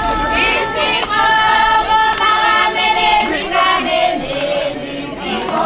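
A group of voices singing a song together, with notes held for about a second at a time.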